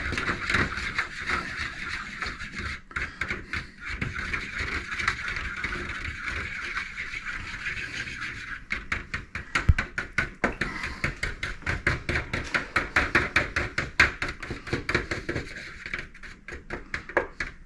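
A whisk beating an egg and buttermilk batter in a bowl: a steady swishing at first, then, from about halfway, rapid even clicks of the whisk against the bowl, about five a second.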